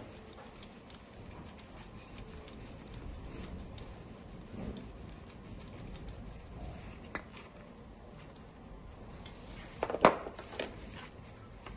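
Gloved hands handling tools and fittings on a bare diesel engine: faint rubbing with scattered light clicks, then a sharp metallic clack about ten seconds in, followed by a smaller click.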